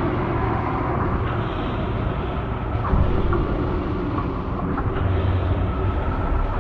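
A steady, loud low rumbling drone with faint held tones over it, of the kind reported as mysterious 'strange sounds' in the sky.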